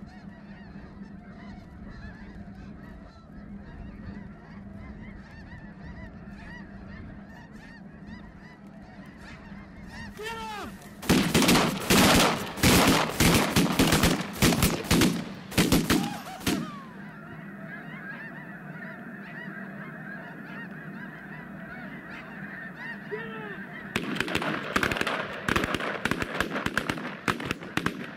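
A huge flock of snow geese calling overhead, a constant din of many overlapping high honks. The calling grows much louder and closer for several seconds from about eleven seconds in, eases off, and swells again near the end as the birds come down low over the decoys.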